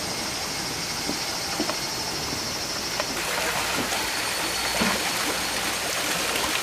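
Steady rush of a mountain river running through a wooded gorge. About three seconds in it changes to the brighter, slightly louder splashing of a small waterfall.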